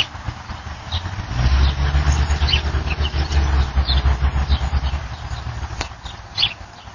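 A motor vehicle's engine rumbling low and pulsing. It swells about a second in and fades near the end, while small birds chirp.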